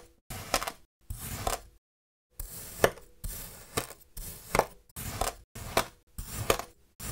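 Knife slicing down through packed kinetic sand: a gritty, crunchy scrape with each cut, ending in a sharp click. About nine cuts at roughly one a second, with a brief pause about two seconds in.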